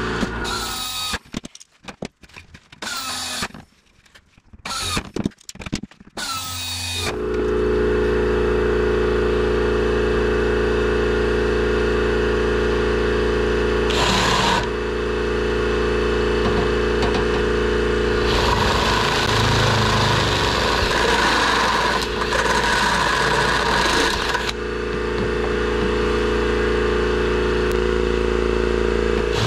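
Cordless drill with a step bit (unibit) enlarging holes in an aluminum wing spar and doubler plate. It starts with several short trigger bursts, then the motor runs steadily for the rest of the time. About two-thirds of the way through, a few seconds of added grinding noise come from the bit cutting into the metal.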